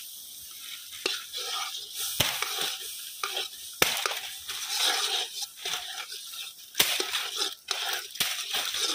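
A spoon stirring and scraping brownie batter in a pot, irregular scrapes with a few sharp knocks of the spoon against the pot.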